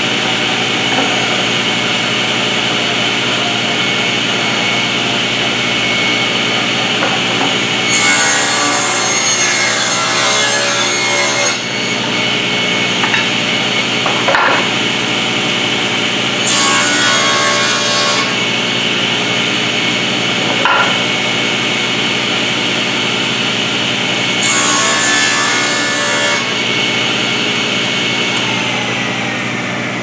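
Table saw running steadily while poplar boards are ripped on it. There are three cuts, about 8, 16 and 24 seconds in, each lasting one to three seconds, with a few knocks of boards being handled between them.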